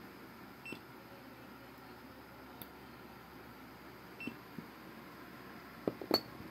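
Quiet soldering of a wire onto a small battery pack: a steady faint hiss, two brief high beeps a few seconds apart, and two sharp clicks near the end.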